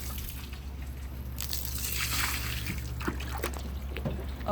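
Water running out and trickling, with a few light knocks.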